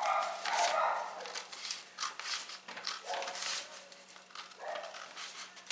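Scissors cutting through a stiff paper pattern along a curve: a run of short snips and paper rustling, loudest from about two to three seconds in. A few brief vocal sounds come in between, one right at the start and others around three and five seconds in.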